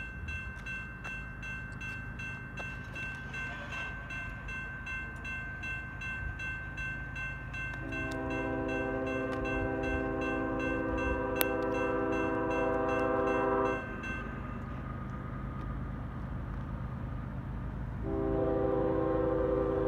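Safetran Type 2 electronic crossing bell ringing steadily while the crossing gates lower, going silent about 14 seconds in as the gates come down. A CSX freight locomotive's horn sounds a long blast from about eight seconds in to near the 14-second mark, then sounds again near the end.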